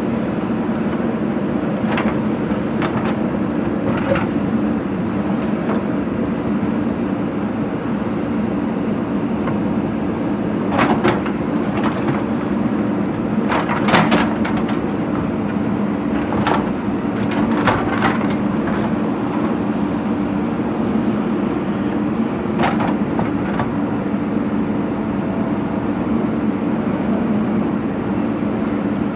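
JCB backhoe loader's diesel engine running steadily, with scattered sharp clanks and knocks as the bucket breaks brick and stone, the loudest in the middle.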